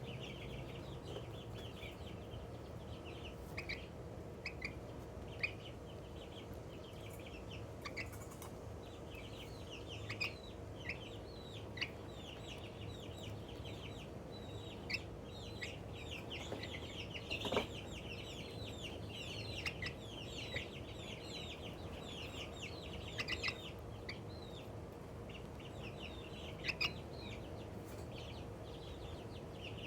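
Young Australorp chicken chirping and peeping contentedly: many short, high chirps, most falling in pitch, coming in scattered bouts with a dense, busy run about halfway through.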